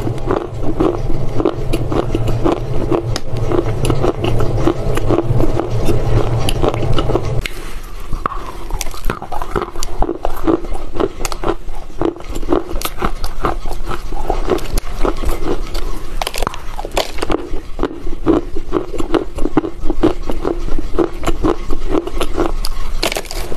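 Close-up crunching of a dry chunk of Chinese loess (compacted clay soil) being bitten and chewed: rapid, dense crackles and grinding crunches. A steady low hum underneath stops abruptly about seven seconds in.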